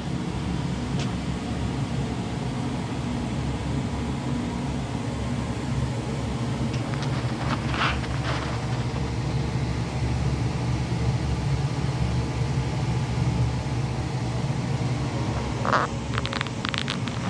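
A machine running with a steady low hum, broken by a few short higher-pitched sounds about halfway through and again near the end.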